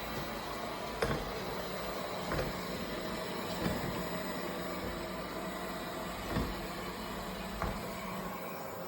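Airzeen R7 robot vacuum running: a steady whir from its suction motor and brushes, with about five short knocks spread through it.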